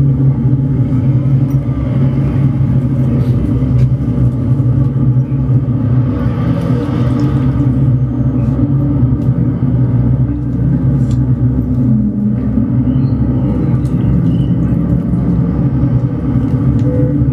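A loud, steady low rumbling drone with a deep hum, unchanging throughout, with a few faint clicks on top.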